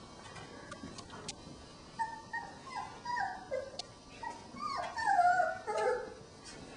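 Four-week-old Border Collie puppies whining: a run of short, high calls that fall in pitch, starting about two seconds in and loudest near the end.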